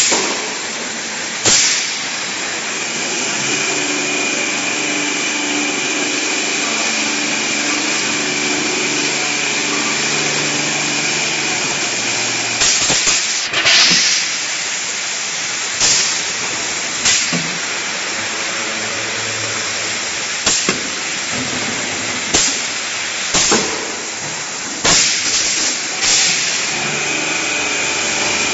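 Automatic edible oil filling machine running: a steady mechanical hum and hiss with a thin high whine, broken by sharp clacks and short hissing bursts at irregular intervals, clustered around the middle and toward the end.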